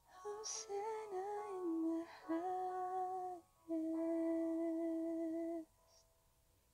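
A woman's solo voice humming a slow melody in long held notes: a short wavering phrase, then two steady notes, the last held for about two seconds before stopping near the end.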